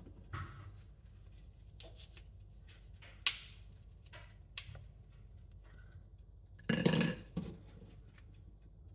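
Chestnuts being scored with a small paring knife: the blade cutting into the hard shells, with scattered clicks and knocks as nuts are picked up and set down. A sharp click a little past three seconds in is the loudest, and a longer, noisier cut of about a second comes near seven seconds in.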